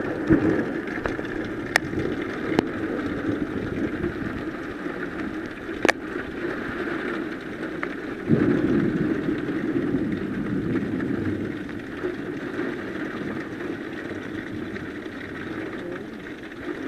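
Heavy downpour of rain driven by wind, a steady rushing noise that swells about eight seconds in, with a few sharp ticks in the first six seconds.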